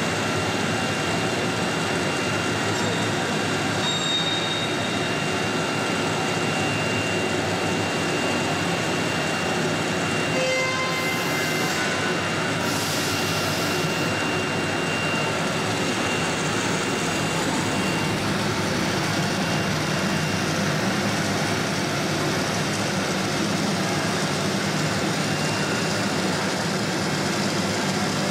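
Steady mechanical running noise from a CNC router's machinery, with a faint steady high whine. About 11 and 13 seconds in come two brief hisses and a few short beeping tones.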